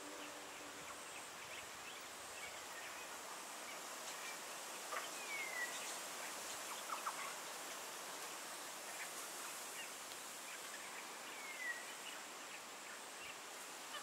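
Faint outdoor bird ambience: scattered short chirps and two short falling whistles from wild birds, over a steady faint high hiss.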